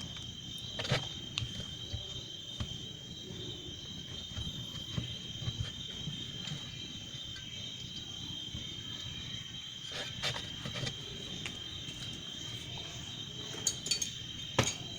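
Steady, high insect-like chirring in the background, with a few light clicks and knocks from handling the washing machine's dryer parts: about a second in, around ten seconds in, and near the end.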